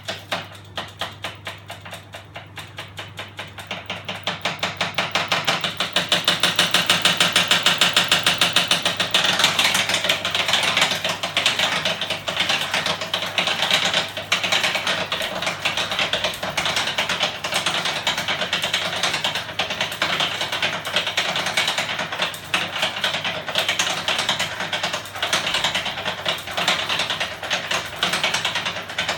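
Homemade electric-motor-driven magnet flapping engine with a bicycle ratchet, running: a rapid mechanical clicking that speeds up and grows louder over the first several seconds, then holds at a fast steady clatter over a low hum.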